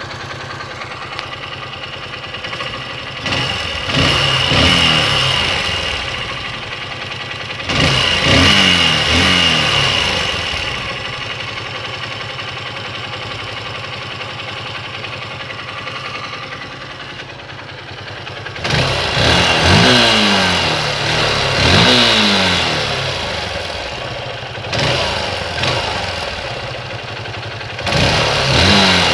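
Honda XR 150's single-cylinder four-stroke engine idling and being blipped about six times, each rev rising quickly and dropping back to idle. The owner is showing an abnormal engine noise.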